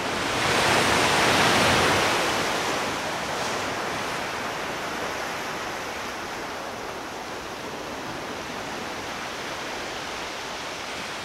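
Sea surf rushing, swelling about a second in and then easing to a steady wash.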